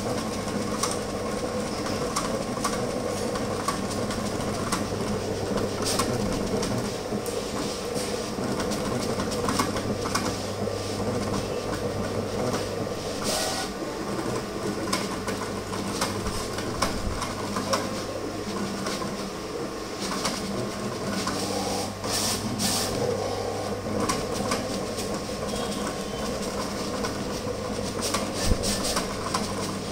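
Printing machine running: a steady motor hum with a continuous stream of small mechanical clicks and rattles.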